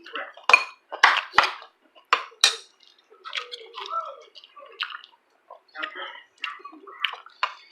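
Utensils clinking and scraping against dishes in short, irregular strikes during a meal.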